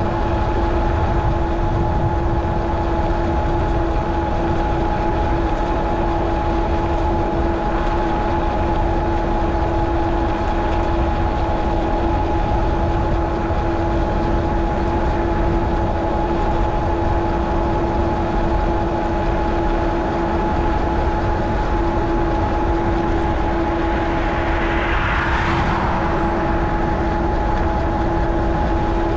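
Steady wind and road noise from a cycling action camera, with a constant hum at two pitches underneath and a short swell of hiss near the end.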